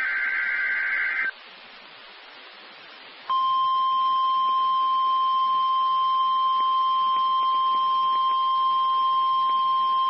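An Emergency Alert System SAME header data burst, a buzzy warbling squeal lasting about a second, ends just over a second in. Radio hiss follows. About three seconds in, the NOAA Weather Radio 1050 Hz warning alarm tone starts and holds steady.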